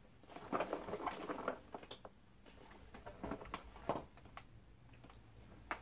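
Faint handling noises of a vacuum cleaner being taken out of its packaging: light scrapes, rustles and small clicks, with a few sharper ticks.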